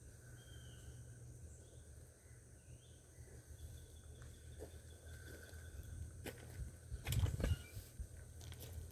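Quiet garden ambience with a few faint chirps and a low steady hum. About six seconds in and again about a second later come short rustles and knocks, the loudest sounds here, from potatoes being dug out of the soil by hand.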